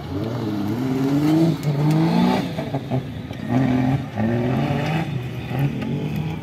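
Off-road race buggy's engine revving hard on a dirt track, rising in pitch in a series of surges that ease off briefly between them.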